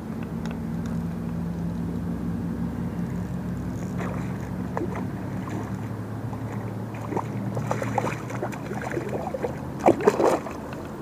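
A steady low hum underneath a hooked walleye being fought in at the water's surface. From about four seconds in come scattered sharp splashes and clicks, which crowd together near the end and are loudest about ten seconds in.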